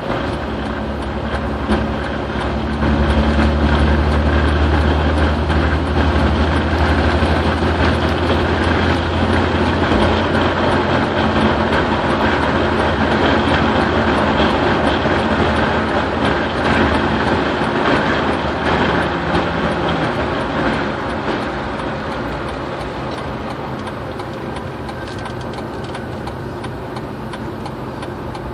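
Road noise inside a moving car on a concrete highway: steady tyre and engine noise, with a low drone that swells about three seconds in and eases off around twenty seconds in.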